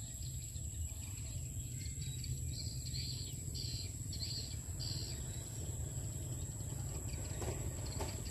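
Outdoor rural ambience: a string of short high chirps between about two and five seconds in, over a steady high whine and a low rumble.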